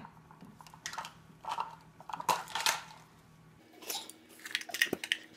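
Short scrapes and clicks of hands gripping and twisting the metal lid of a glass jar of pizza sauce, trying to open it, with a sharper knock near the end.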